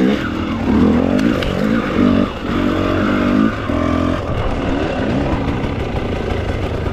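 Enduro motorcycle engine revved in a series of short throttle surges, its pitch rising and falling, then settling to a lower, steadier note after about four seconds.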